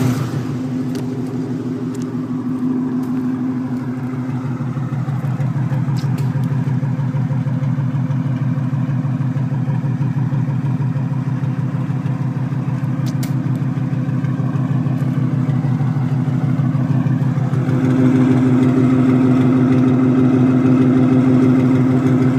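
Vehicle engine running at a steady speed, with a rapid, even pulsing exhaust note that the owner takes for an exhaust leak. The tone shifts slightly a few seconds in and again near the end.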